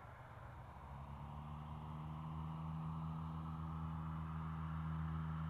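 Aircraft engine, a steady low drone that sets in about a second in and slowly grows louder as it approaches.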